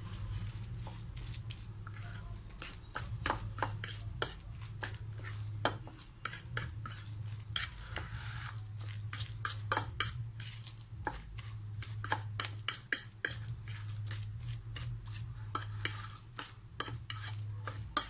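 Metal fork clinking and scraping against a ceramic plate while mixing raw shrimp with egg and flour batter: quick, irregular taps that get busier and louder in the second half.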